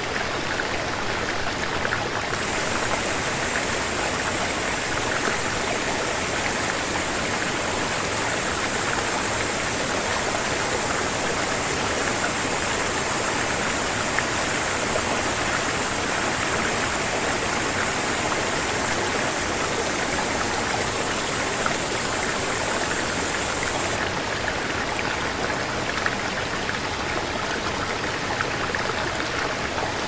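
Mountain stream rushing over rocks and small cascades: a steady, even rush of water. A higher hiss lies over it from a couple of seconds in until about six seconds before the end.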